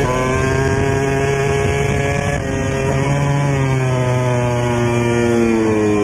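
Engine running at a steady pitch, its pitch then falling slowly over the last couple of seconds.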